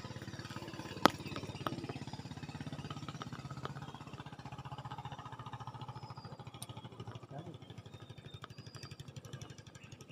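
A small engine running steadily with a fast, even pulse, slowly fading over the last few seconds, and a single sharp click about a second in.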